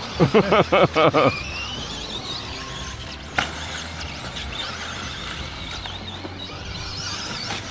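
Electric RC short-course trucks racing: high motor whines that waver up and down in pitch, one climbing steadily during the first couple of seconds. One sharp knock comes about three and a half seconds in.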